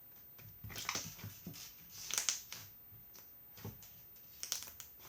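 Fluffy slime squished and pressed in the hands, giving several clusters of sticky, wet crackles and pops.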